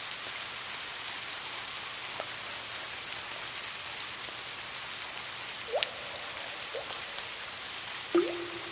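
Soft rain falling in a steady hiss, with water drips plinking now and then. A few rising plinks come in the second half; the loudest, near the end, rings on briefly.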